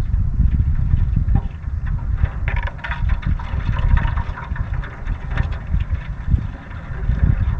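Low, gusting rumble of wind buffeting the microphone, with water splashing and trickling against the canoe now and then, most around the middle.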